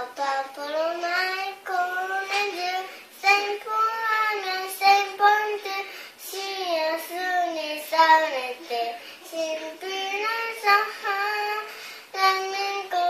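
A young girl singing solo in phrases of held notes that glide up and down in pitch.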